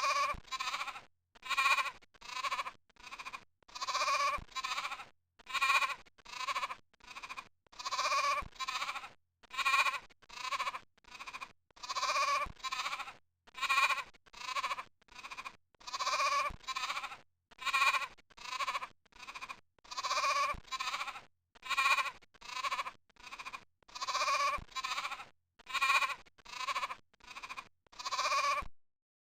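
Goat bleating over and over: short bleats in quick succession, the same sequence repeating about every four seconds as a looped sound effect, cutting off abruptly near the end.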